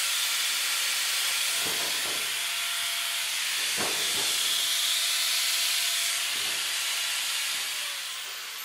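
Handheld angle grinder with a cut-off disc slicing through the sheet-steel wall of an oil drum: a loud steady hiss with a high whine. Near the end it is lifted off the metal and the disc starts to wind down, its whine falling in pitch.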